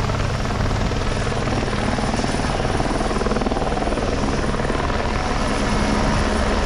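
Helicopter flying overhead: a steady, fast rotor beat over the engine's drone, holding even throughout.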